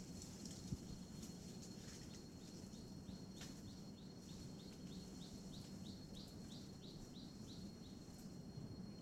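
Faint natural ambience: a steady high insect drone, with a bird calling a run of short falling notes, about three a second, from about two and a half seconds in until near the end.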